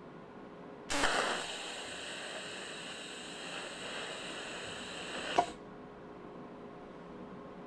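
Welder arc on a sheet-metal car quarter panel, running for about four and a half seconds: a steady hiss that starts abruptly about a second in and cuts off with a click.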